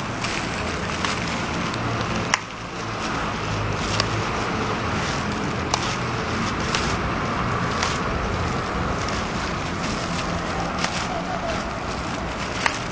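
Steady outdoor rushing noise with scattered sharp clicks and taps every second or two.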